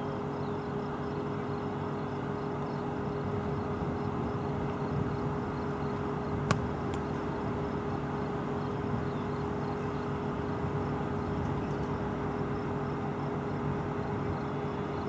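Steady drone of idling jet engines, with a constant whine over a low hum. A single sharp click about six and a half seconds in.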